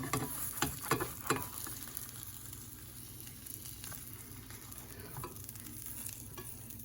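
Omelet frying in an oiled frying pan with a steady sizzle. A few short knocks of a utensil against the pan come in the first second and a half as one side of the omelet is flipped over.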